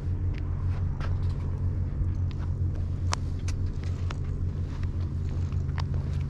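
A steady low engine drone, with scattered footsteps on an asphalt road over it.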